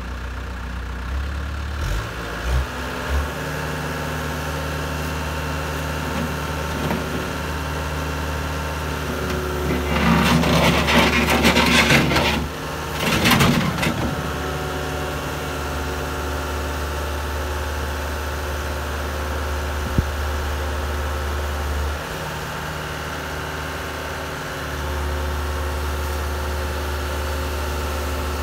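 Caterpillar 277B compact track loader's four-cylinder turbo-diesel engine running steadily while its hydraulics raise the lift arms and curl the bucket. The noise swells twice, about ten and thirteen seconds in, each time for a second or two.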